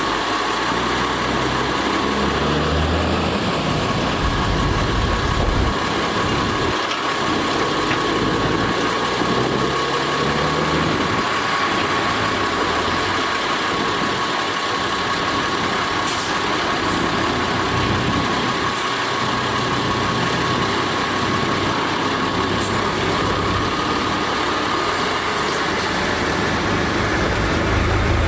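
Heavy diesel engine of earthmoving machinery running under varying load, with a steady high whine over its rumble.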